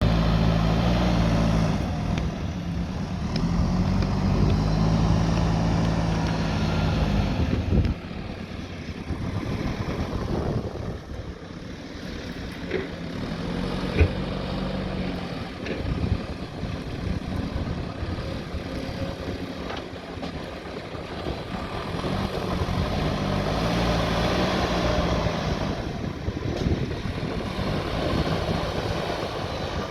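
Diesel engine of a heavy earthmoving machine working, its note swelling and easing as the load comes and goes. A single sharp knock sounds about halfway through.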